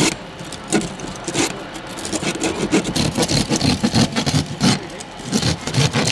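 A car being cut open with rescue tools: a hydraulic rescue cutter biting into the windshield pillar while the cracked laminated windshield glass and metal give way in a dense run of irregular cracks, crunches and snaps.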